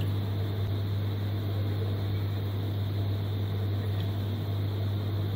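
Steady low electrical hum with an even hiss behind it, unchanging throughout.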